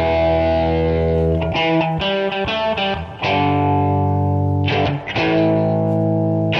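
Outro music: distorted electric guitar striking chords about every one and a half seconds and letting them ring.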